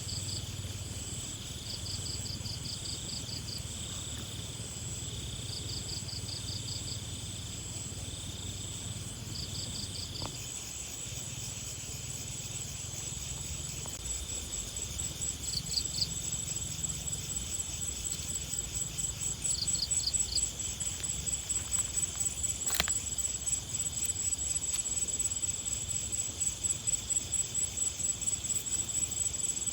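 Insects calling in grass: a steady high trill with short runs of rapid chirps, turning after about ten seconds into a fast, pulsing buzz that grows louder. One sharp click near the end.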